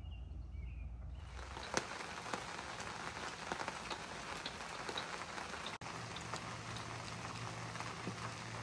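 Steady rain falling, with many small drop ticks over an even hiss; it comes in about a second in, after a brief low rumble of wind on the microphone.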